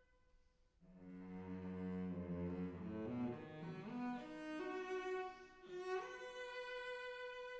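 Background music on bowed strings: a held high note fades out, then about a second in low notes come in and climb in pitch, and a high held note returns near the end.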